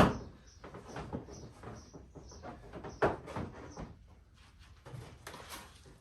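Scattered clicks and knocks of tools and plastic ATV body parts being handled during disassembly, with one sharp louder knock about three seconds in.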